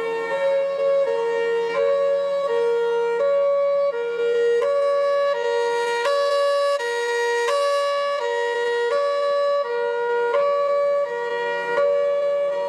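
Two-tone siren alternating evenly between a high and a low note, each held about three-quarters of a second.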